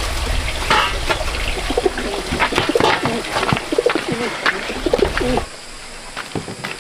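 Pigeons cooing repeatedly, mixed with knocks and rustles from a woven bamboo tray and basket being handled; the sound stops suddenly about five and a half seconds in, leaving quieter outdoor background.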